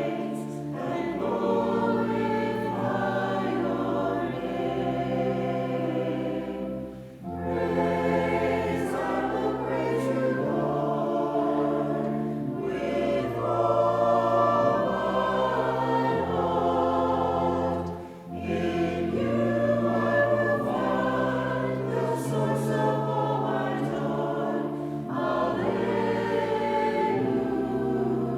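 Church congregation singing a hymn together with instrumental accompaniment, in held notes over a sustained bass line, with short breaks between lines about 7 and 18 seconds in.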